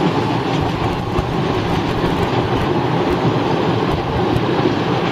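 Electric suburban trains passing at close range: a steady running noise of wheels on the rails, with no pauses or separate knocks standing out.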